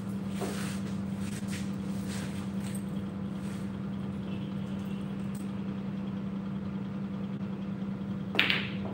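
Steady low hum of room machinery under the pool hall's room sound. Near the end comes one sharp clack of a pool shot, the cue striking the ball.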